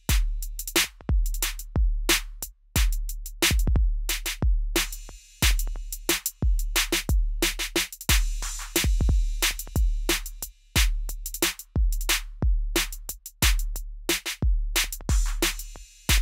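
Three layered copies of a trap-style drum loop playing out of sync with each other, so their kicks and hi-hats phase against one another into shifting polyrhythms. Deep kick drums with long low tails sit under fast, busy hi-hats and snares.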